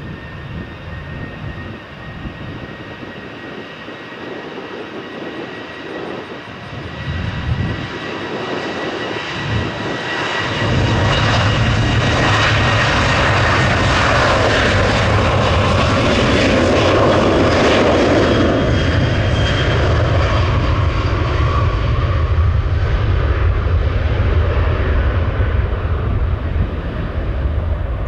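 Jet airliner engines close by: a high whine that sinks slightly in pitch, then from about ten seconds in a loud, steady low rumble that lasts to the end.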